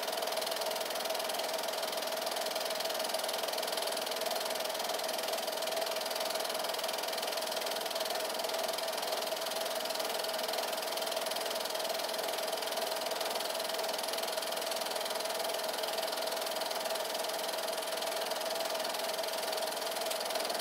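8mm film projector running: a steady mechanical whir over an even hiss, with one constant mid-pitched hum.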